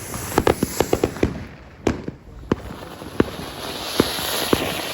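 Firecrackers and fireworks going off: a fast string of sharp cracks in the first second, then single bangs every half second or so, with a growing hiss near the end.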